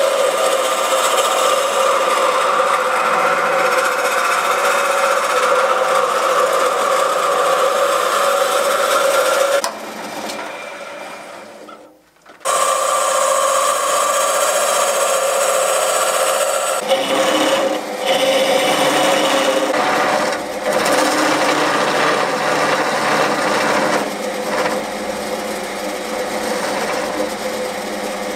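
Wood lathe spinning a wooden workpiece while a handheld gouge cuts into it: a steady whirr with a scraping hiss of shavings being cut. The sound dies away about ten seconds in and starts again abruptly a couple of seconds later.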